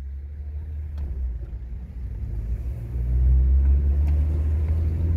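A car driving: a steady low engine and road rumble that grows louder about three seconds in.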